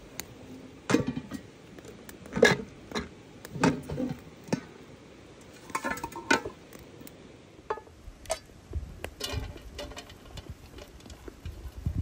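Metal cookware clanking and clinking on a campfire grill stand as a frying pan is set down beside a kettle: a dozen or so sharp, irregular knocks, the loudest in the first few seconds.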